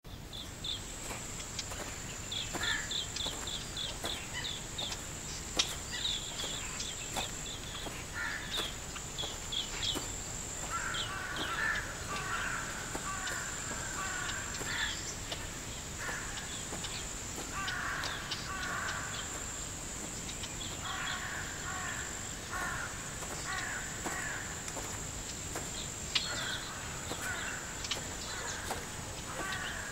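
Countryside bird chorus: bouts of harsh, repeated calls, series of short high chirps, and a steady high insect drone underneath, with a few scattered clicks.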